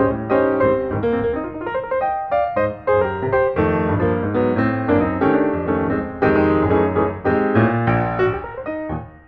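Background piano music: a steady run of melody notes over held low chords.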